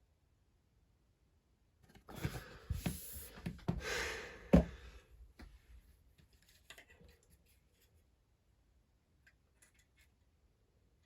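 Handling noise: rustling with a quick run of clicks and knocks for about three seconds, starting about two seconds in, then a few faint scattered clicks.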